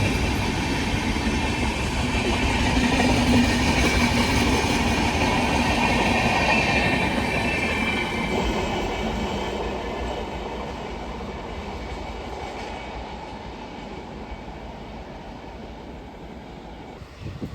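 A train running past on the tracks, loud for the first several seconds, then fading away steadily as it moves off.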